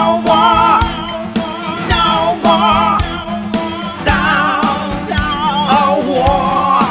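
Rock song playing: drums beating steadily under guitars, with a wavering lead melody on top.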